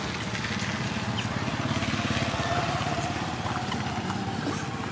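A small engine running steadily, a fast even low chug that grows a little louder around the middle and eases off toward the end.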